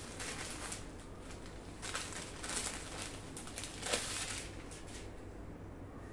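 Cloth rustling as a light printed dupatta is unfolded and handled, in a series of short swishes, the loudest about four seconds in.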